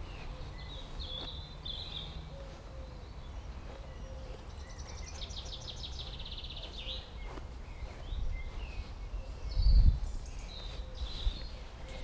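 Small garden birds chirping, with one rapid trill of quickly repeated high notes lasting a couple of seconds in the middle. A low rumble of wind on the microphone runs underneath, with one louder gust near the end.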